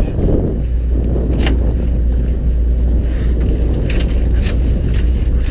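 Fishing boat's engine running with a steady low hum. A few sharp knocks sound over it, once about a second and a half in and several more times between about four and five seconds in.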